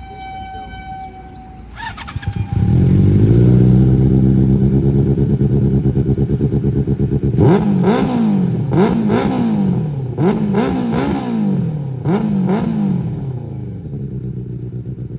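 Benelli 600i inline-four fitted with an SC Project aftermarket exhaust starting up about two seconds in and idling. From about halfway through the rider gives it a series of quick throttle blips, each rising and falling sharply, before it settles back to idle.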